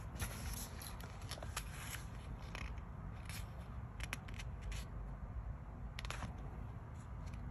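Faint handling of an open book: soft ticks and rustles of fingers on the paper pages, scattered through, over a low steady room hum.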